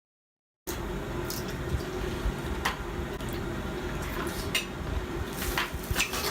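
Seafood being handled and eaten by hand: wet squishing with scattered sharp clicks and crackles, as from shellfish being pulled apart. The sound starts after a brief silent gap at the very beginning.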